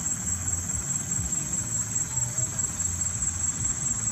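Insects trilling steadily at a high pitch, over a low, uneven rumble.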